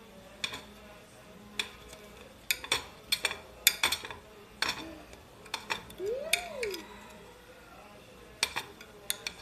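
A metal knife cuts through a thick pancake, clinking and scraping against the plate in irregular sharp clicks, busiest in the middle of the stretch. A brief squeak-like tone rises and falls about two-thirds of the way through.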